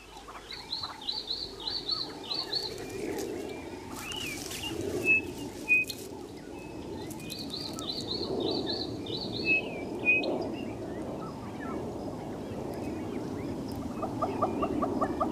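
Wild birds calling: two runs of quick high chirps, a few short whistled notes between them, and a fast, even series of lower notes starting near the end.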